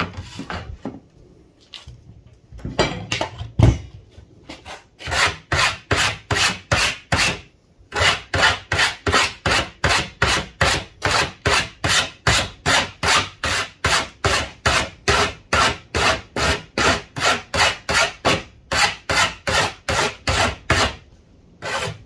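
Hand file rasping along the freshly cut edge of a mild steel sheet in quick, even strokes, about three a second, taking off the burr left by the angle grinder's cutting disc. Before the filing starts there are a few seconds of handling noise, with one knock about four seconds in.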